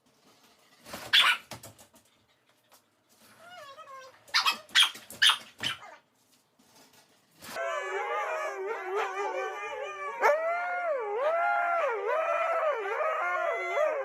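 A dog gives a few short, sharp barks. Then it howls steadily, its pitch wavering up and down.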